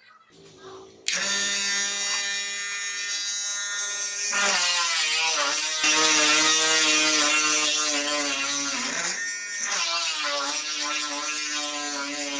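775 DC motor of a homemade mini drill press switched on about a second in and running with a steady whine. Its pitch dips and wavers twice, around four and nine seconds in, before settling again.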